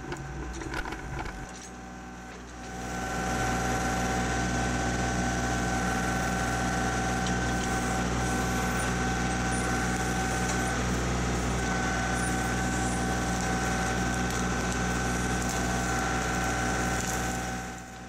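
Kubota L3901 tractor's three-cylinder diesel engine running steadily while its BH77 backhoe drags a ripper shank through soil and tree roots. A steady high whine sits over the engine note. The sound gets louder about three seconds in.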